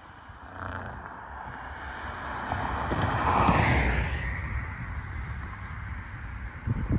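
A car driving past on the road: its tyre and engine noise swells to a peak about three and a half seconds in, falling in pitch as it goes by, then fades away.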